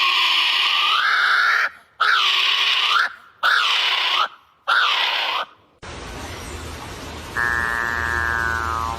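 A bird giving loud, harsh calls: one long call, then three shorter ones each bending up and down in pitch. About six seconds in, a different recording starts with background hum and a higher call that falls slightly in pitch.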